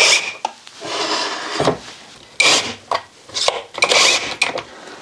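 Cordless impact driver running screws through a charge controller's mounting tabs into a wooden wall, in several short bursts of driving with brief pauses between.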